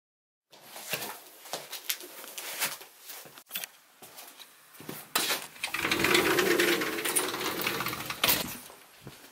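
A glass-and-lattice sliding door being handled: scattered clicks and knocks, then a rattling rumble for about two and a half seconds as it runs along its track, ending in a knock.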